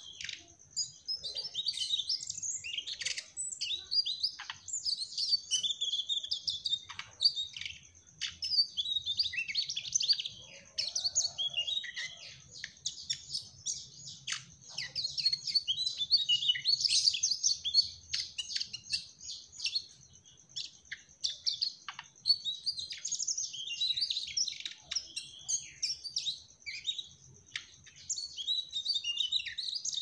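Mugimaki flycatcher singing in fast runs of high-pitched chirps and twittering trills, with only brief pauses.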